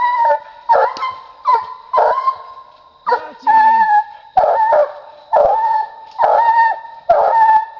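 Young hound barking up a tree: about ten loud barks, roughly one a second, some drawn out into short bawls. This is a treeing dog's bark.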